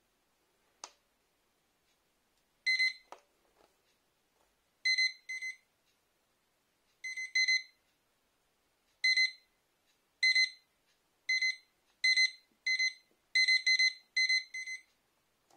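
Wooden LED digital alarm clock beeping: short electronic beeps at a single high pitch, first singly or in pairs a couple of seconds apart, then faster and closer together toward the end, in the escalating pattern of an alarm. A faint click comes about a second in.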